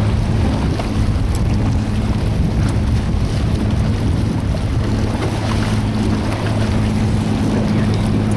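Boat engine running at a steady pitch, with wind and water noise over the microphone.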